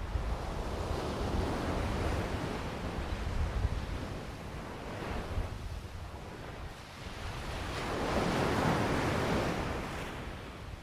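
Ocean surf washing in, swelling up twice, once early and again around eight seconds in, with wind rumbling on the microphone.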